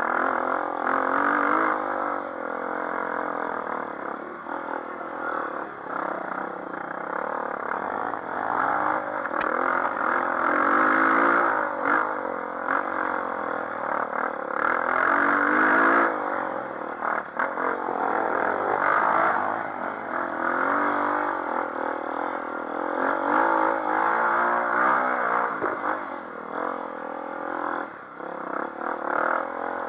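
Four-stroke single-cylinder dirt bike engine revving up and down over and over, its pitch climbing as the throttle opens and dropping back off, with the loudest surges about a third of the way in and around the middle.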